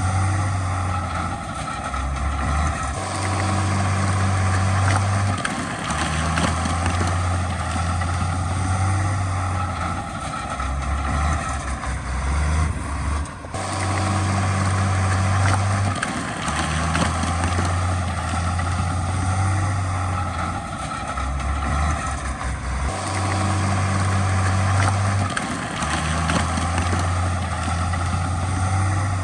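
Heavy diesel earthmoving machinery running: a loud low engine drone that steps up and down in pitch, with a wavering whine and a broad clatter above it. The sound breaks off sharply and starts over about every nine seconds.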